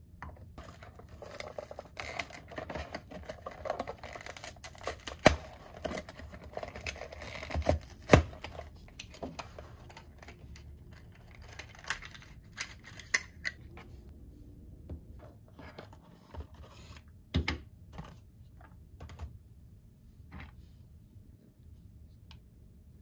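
Hands unboxing and handling Bluey Bingo's Ice Cream Cart toys: packaging and hard plastic pieces rubbing, clicking and tapping. The sounds are dense in the first half and sparser after, with the sharpest knocks about five, eight and seventeen seconds in.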